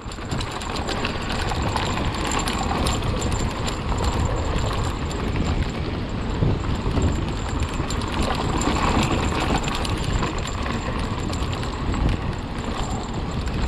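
Hardtail e-mountain bike rolling fast on a dry dirt trail at about 35 km/h: a steady rush of wind on the microphone and tyre noise, with frequent rattling clicks from the bike over small bumps.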